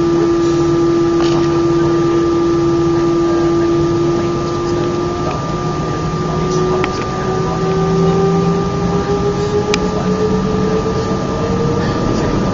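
Airbus A319's turbofan engines heard from inside the cabin: a steady engine whine whose main tone starts rising in pitch about halfway through as the engines spool up, typical of thrust coming up for the takeoff roll.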